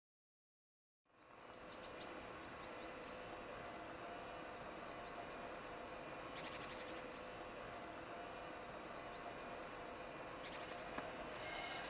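Quiet outdoor ambience fades in after about a second of silence: a steady faint hum with a few short bird chirps. Near the end a rail vehicle approaching begins to be heard faintly.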